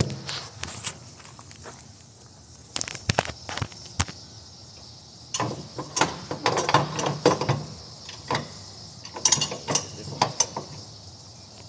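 Flatbed trailer strap winches being ratcheted and strap hardware handled while tying down coils: metallic clicks and clanks in several short bursts.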